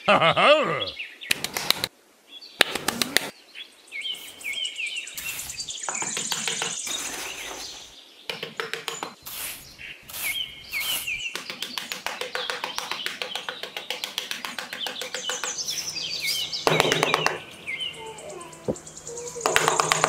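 Small birds chirping in short repeated phrases, over intermittent scraping and tapping of a small metal hand trowel working sand.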